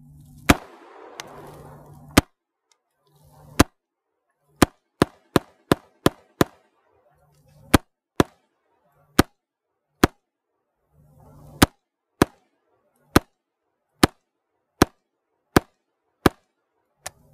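Ice-coated SIG MCX rifle, frozen after being soaked with water, firing about twenty single shots at an uneven pace: a quick string of six around five seconds in, then roughly one a second. It fires and cycles every round despite water frozen in its trigger mechanism.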